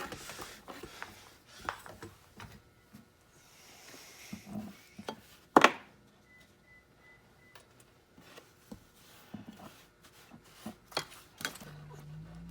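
Scattered clicks, knocks and rubbing from handling the key machine and its motor cord, with one sharp knock about halfway through. A low steady hum starts near the end.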